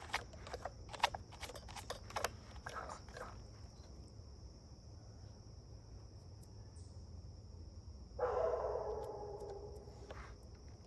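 Toothbrush scrubbing strokes on a chainsaw around the bar oil feeder, a few quick scratches and clicks in the first few seconds. About eight seconds in comes a high, drawn-out whine that fades over about two seconds.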